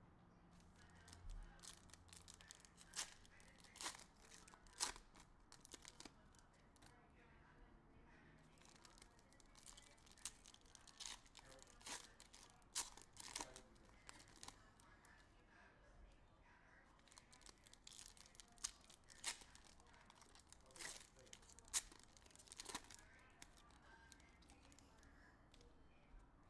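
Wrappers of Panini Illusions NFL trading-card packs being torn open and crinkled by hand, with cards being handled and sorted. The sound is faint and irregular: many short, sharp crackles and snaps.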